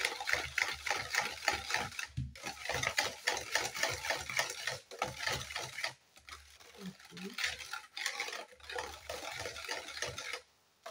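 Wire whisk beating a runny batter of eggs, sugar, oil and sour cream in a bowl: fast, rhythmic wet strokes, pausing briefly about six seconds in and again near the end.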